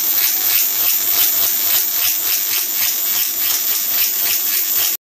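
High-voltage arc of a Jacob's ladder on a car ignition coil, driven by a low-voltage induction-heater inverter board at about 4 amps and 40 volts. The arc buzzes and hisses, pulsing about four to five times a second, and cuts off suddenly at the very end.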